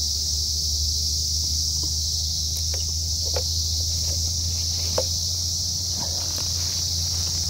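A continuous high-pitched insect chorus, crickets or similar, holding steady, over a low steady hum. A few light knocks sound now and then as things are handled.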